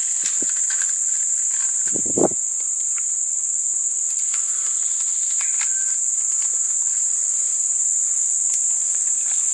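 Insects droning, one steady high-pitched note that does not change. About two seconds in there is a single dull thump, with a few faint rustling ticks of leaves being handled.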